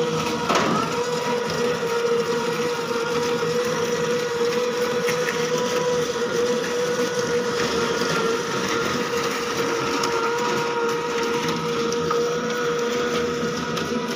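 Motor of a push-along cow dung collecting machine running with a steady whine as it is pushed along and picks up dung.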